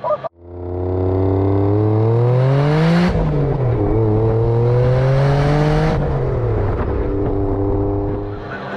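Maserati Ghibli's twin-turbo V6 under full-throttle acceleration. The revs climb steadily, drop sharply at a quick upshift about three seconds in, and climb again through the next gear. At about six seconds the throttle comes off, and the engine falls back to a steady lower cruise.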